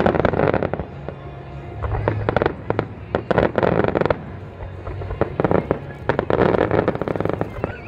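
Fireworks display: aerial shells bursting into golden crackling stars, with dense rapid crackling and popping that comes in about five waves.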